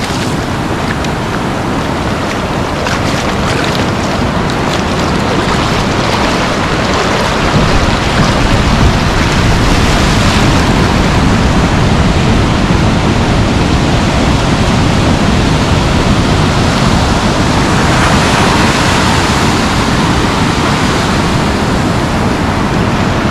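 Ocean surf: waves breaking and foam washing in around the shallows, a loud steady rush that swells and eases as sets come in. Wind rumbles on the microphone underneath.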